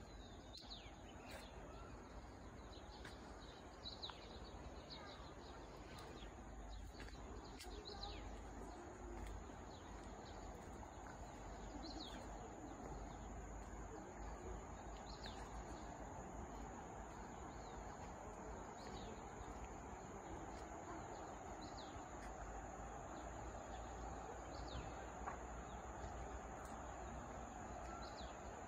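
Birds chirping, with short high calls every second or so, over a steady outdoor hiss and a constant thin high tone.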